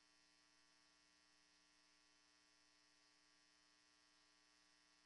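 Near silence: only a faint, steady electrical hum from the sound system while the speaker's microphone is switched off.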